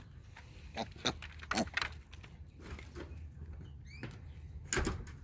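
Knocks and clunks of an SUV's door and cargo area being handled, over a low steady hum, with the loudest clunk near the end. A short, faint rising squeak comes about four seconds in.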